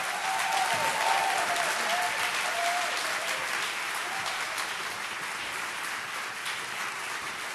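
Audience applauding, swelling in the first second and then slowly tapering off.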